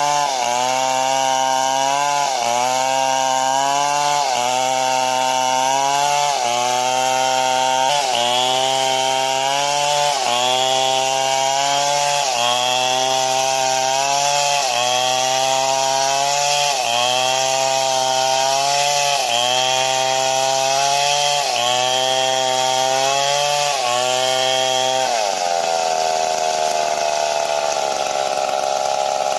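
Stihl MS 070 two-stroke chainsaw running hard in a cut, its pitch sagging and recovering about every two seconds as the chain loads up. Near the end the revs drop and the note falls.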